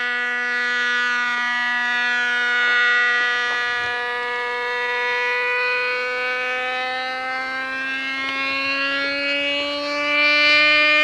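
Radio-controlled model airplane's motor whining at high speed in flight, one steady pitched tone that rises slowly over the last few seconds and grows louder near the end.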